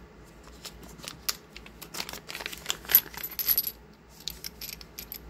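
Snap caps (dummy .357 Magnum rounds) clinking against each other as they are handled and taken out of a plastic bag. It is a quick run of sharp metallic clicks with a brief ring, busiest in the middle.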